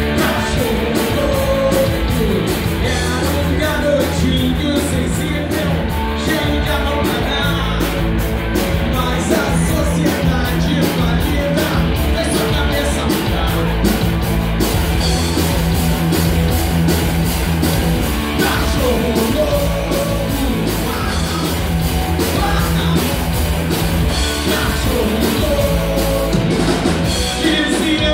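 Live rock band playing at full volume: electric guitars, bass and drums driving a steady beat with cymbals, and a voice singing over it.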